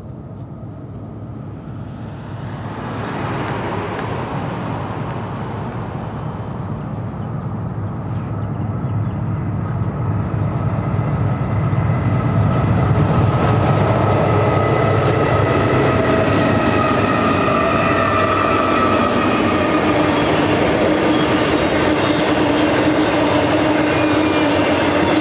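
BNSF double-stack intermodal freight train approaching and passing: the rumble of its GE diesel locomotives grows, loudest about ten to fourteen seconds in, then the loaded well cars roll by with a steady rolling clatter and a steady high whine from the wheels on the rails.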